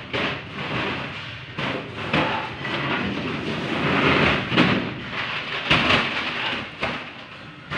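Plastic water containers being loaded into a truck's metal cargo box: irregular knocks, thumps and scraping, with a hollow rumble from the box.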